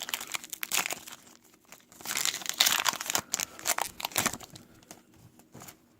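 Plastic wrapper of a trading card pack crinkling and tearing as it is handled, loudest from about two to three and a half seconds in and fading near the end.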